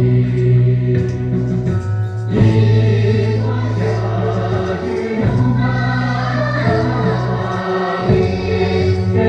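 Tibetan dance song: several voices singing together over musical accompaniment, with long held low notes that shift every two seconds or so.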